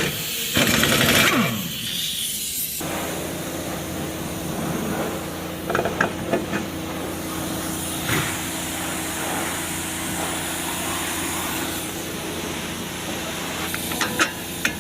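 A car's howling noise while driving: a steady low drone of several held tones over road noise. It comes in abruptly about three seconds in after a stretch of hiss, with a few light clicks over it.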